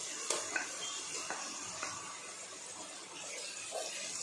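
Chopped onions sizzling in oil in a frying pan, with a few light clicks and scrapes in the first two seconds as a steel bowl and a wooden spatula work against the pan.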